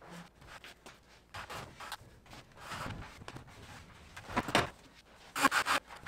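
A wooden 2x4 stud wall being wrestled upright into place: the lumber frame scrapes and knocks against the concrete floor and overhead framing, with a longer scrape near the middle and clusters of sharper wooden knocks toward the end.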